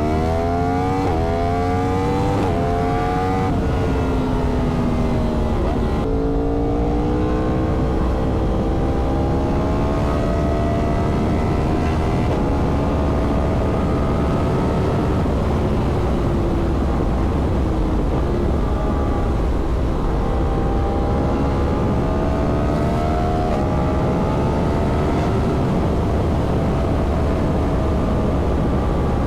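Yamaha MT-10's crossplane inline-four engine pulling hard through several quick upshifts, its pitch climbing and dropping with each gear change. It then holds and eases off, and climbs again later on, over heavy wind rumble on the microphone.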